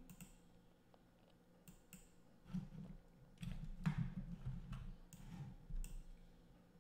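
Faint, scattered computer mouse clicks, several of them spaced irregularly, with a faint low hum under them in the middle.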